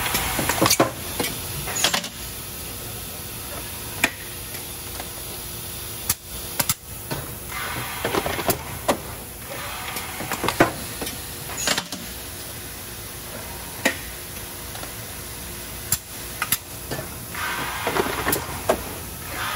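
Industrial machinery running inside a caged cell: irregular clanks and knocks over a faint steady hum, with two spells of hissing about eight seconds in and near the end.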